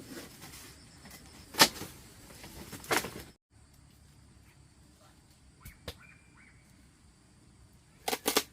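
Sharp knocks of building work: a loud one about one and a half seconds in and another near three seconds, then a fainter knock and a quick run of three or four knocks near the end.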